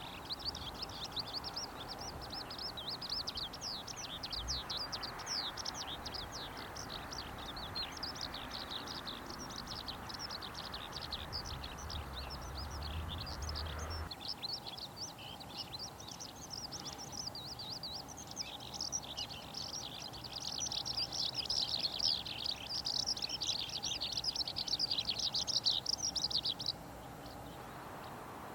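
Eurasian skylark singing: a long, unbroken stream of rapid, high chirps and trills that stops abruptly near the end.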